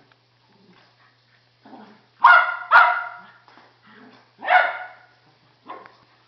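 Jack Russell terrier barking: two loud barks in quick succession about two seconds in and a third about a second and a half later, with a few softer, shorter barks around them.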